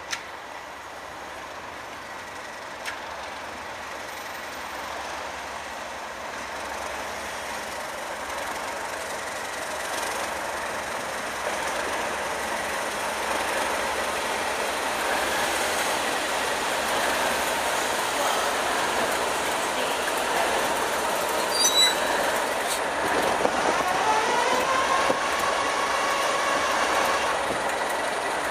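Pair of Class 37 diesel locomotives approaching and running past at low speed, growing steadily louder. A few sharp clicks come around two-thirds of the way in, then a whine that rises in pitch and holds near the end.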